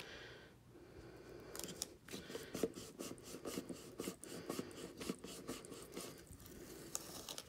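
Transfer tape rubbed and pressed onto a plastic cup by hand to set a vinyl decal: faint crackling and rustling with many small irregular clicks.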